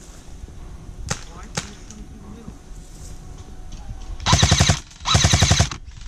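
Airsoft rifle firing two short, rapid full-auto bursts back to back near the end, loud and close, after two single sharp snaps about a second in.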